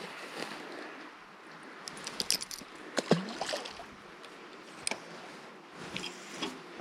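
A scattered series of sharp clicks and knocks with light water sloshing, the loudest knock about three seconds in, followed by a short falling squeak.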